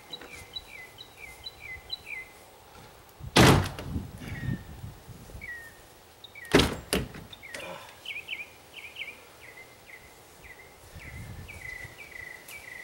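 Two heavy thunks about three seconds apart, the second followed at once by a lighter knock, from work on the fiberglass boat hull and cap. A bird repeats a short chirped call about twice a second before and after them.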